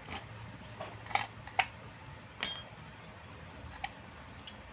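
Light metal-on-metal clinks of a small steel open-end wrench against the steel cylinder studs of a motorcycle crankcase, a handful of separate taps, one about halfway ringing briefly.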